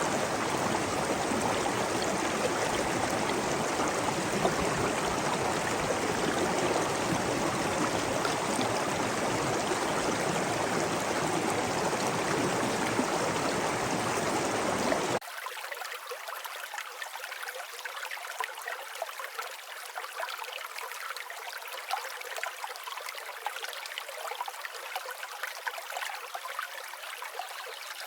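Flowing stream water, a steady, full rush of running water. About halfway through it cuts suddenly to a quieter, thinner water sound with the deep part gone.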